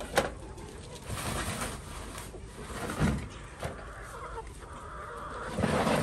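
Chickens clucking and calling, with a few scattered knocks.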